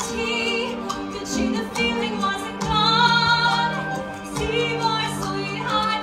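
A woman singing slow, sustained notes with vibrato over a pit orchestra's accompaniment with long held low notes, from a stage musical.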